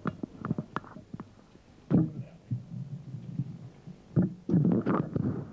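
Irregular soft thumps and knocks, with muffled, indistinct voices in the background near the end.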